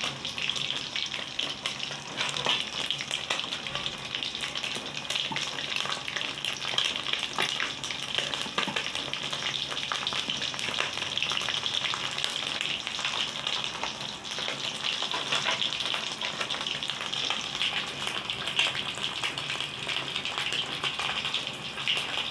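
Small whole tinapa fish frying in shallow hot oil in a wok: a steady sizzle with many small pops and crackles throughout.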